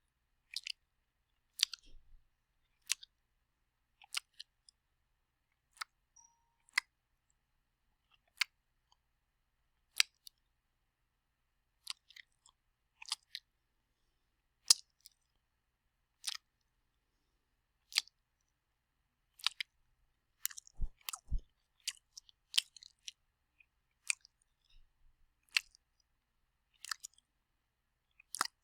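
Wet mouth sounds: short, sharp lip-and-tongue clicks and smacks, one every second or two with silence between, bunching closer together a little past two-thirds of the way through, where two deeper smacks come.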